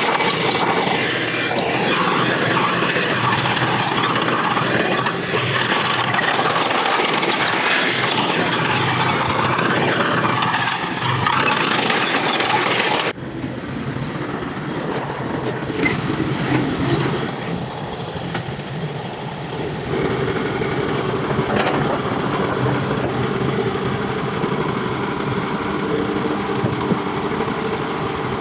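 Heavy diesel earthmoving machinery running under work, with an abrupt switch about halfway through to a quieter, steadier engine note.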